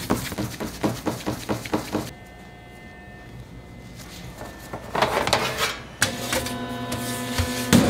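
A quick run of sharp knocks, about five or six a second, for the first two seconds. It is followed by a quieter stretch and a short noisy scrape about five seconds in.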